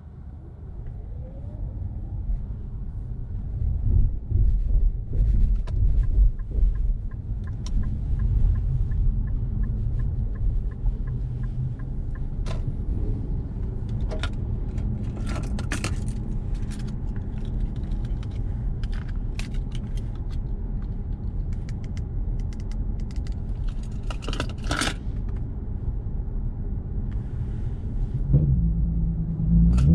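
Infiniti Q50S Hybrid with a 3.5-litre V6 driving, heard from inside the cabin: a low road and engine rumble that grows louder about three seconds in as the car pulls away, with scattered light clicks and rattles. Near the end the engine starts to rev up under acceleration, its pitch rising.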